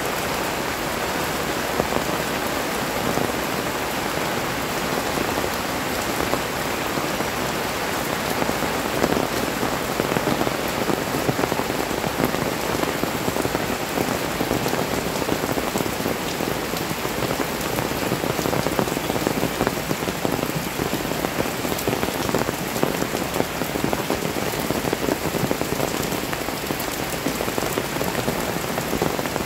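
Heavy rain pouring steadily onto a paved street, a dense even hiss with close drops ticking all through it.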